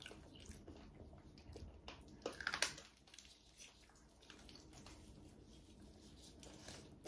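Faint wet chewing and lip-smacking of someone eating braised pork trotter by hand, with a short louder cluster of smacks about two and a half seconds in.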